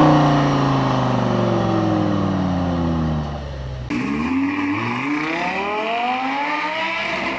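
Lamborghini Gallardo LP560-4's V10 engine, its pitch falling steadily for about four seconds as the revs drop. After an abrupt change about four seconds in, it dips and then climbs again as it pulls up through the revs.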